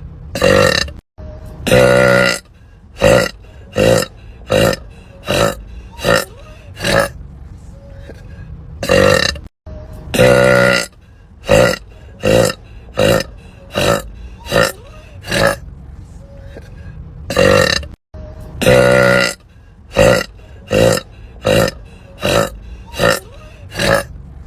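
A woman burping over and over: three runs of about eight burps each, roughly one every three-quarters of a second. Each run opens with a longer, deeper burp, and the same run repeats as a loop with a brief cut between repeats.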